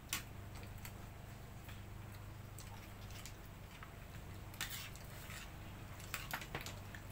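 Scattered small clicks and clinks of clam shells and a spoon against plates as people eat cooked clams by hand, with a few taps together near the end, over a steady low hum.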